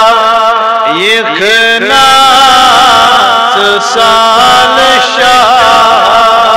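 A man chanting devotional verse in long, ornamented held notes, with a few rising pitch slides about a second in.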